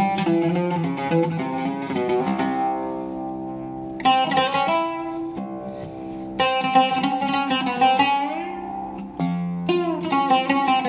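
Solo oud with a cedar soundboard, played as quick runs of plucked notes broken by notes left to ring, with sliding pitches in the second half.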